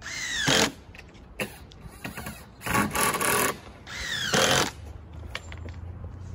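Cordless drill driving screws into wood, in three short bursts with the motor pitch swooping up and falling away.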